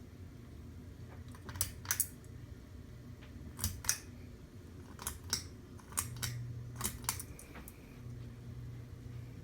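Harbor Breeze Armitage ceiling fan's motor humming steadily, with about ten sharp clicks, several in close pairs. The hum grows louder about six seconds in.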